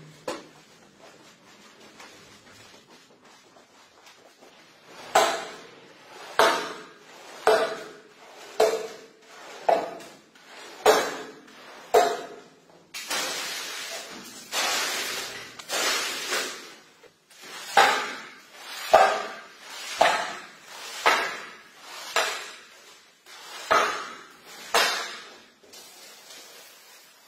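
Floor squeegee worked in strokes over a soap-foamed shag rug on a tiled floor, about one stroke a second: each a sharp knock that fades quickly, with a stretch of steadier scraping in the middle.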